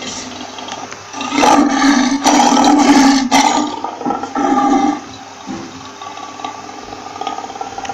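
Lion roaring: a long, loud roar from about a second and a half in, a shorter roar a little after the middle, then quieter sound.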